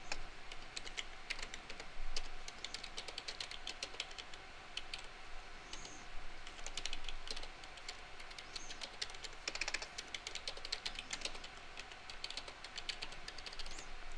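Typing on a computer keyboard: quick keystrokes in runs, with short pauses between the runs.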